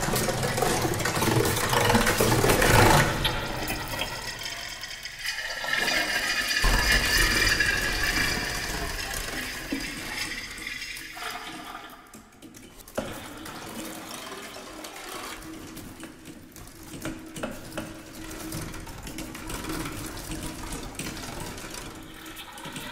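Water sounds played as part of an experimental live music piece: a loud rushing, flushing wash that falls back, swells again with high ringing tones over it, then thins to a quieter trickle with a single click partway through.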